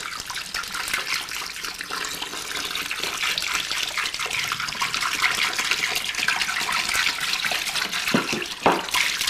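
Hot water pouring in a steady stream into a plastic cooler, splashing onto a cornmeal and sugar mash.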